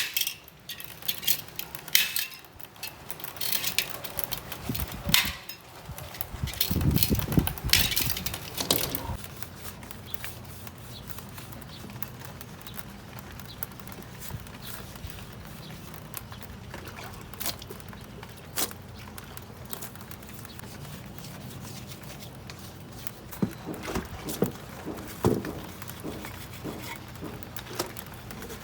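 Irregular clicks and knocks of parts and tools being handled during bicycle restoration work, over a steady low hum. The knocks are busiest in the first few seconds, with a heavier thud about seven seconds in, and pick up again near the end.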